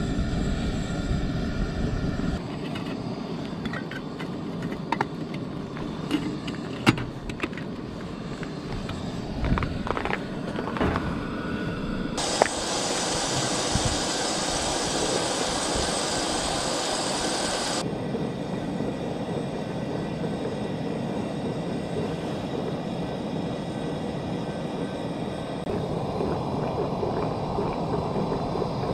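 Camp coffee being made with a stainless stovetop percolator on a propane camp stove: scattered clinks and rattles of the metal pot, basket and lid as grounds go in, over a steady rushing noise. A louder hiss comes in abruptly near the middle, lasts about five seconds, and cuts off.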